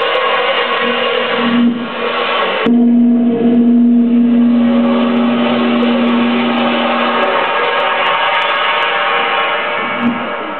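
Live experimental noise music with electric guitar: a dense, noisy wash of sound layered with steady tones. About two and a half seconds in the texture changes suddenly and a strong low tone comes in, held for about four and a half seconds before it drops away into the wash.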